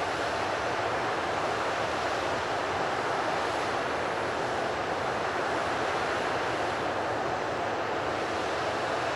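Jet engines of a Boeing 737-800 (CFM56-7B turbofans) running as the airliner taxis slowly along the runway. The noise is a steady, even rush that holds at one level and pitch throughout.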